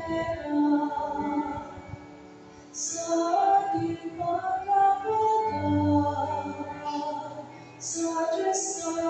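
Voices singing a hymn, a woman's voice prominent, in sustained phrases broken by two short pauses for breath, about two seconds in and again near the end: the entrance hymn that opens the Mass.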